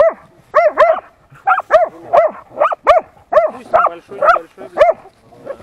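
Hunting laika barking at a badger holed up in its burrow: a fast, even run of about a dozen barks, two or three a second, the dog baying the badger it has found underground.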